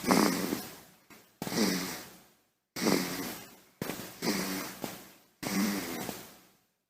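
Baby snoring: about five snoring breaths, roughly one every second and a half. Each starts suddenly and fades away.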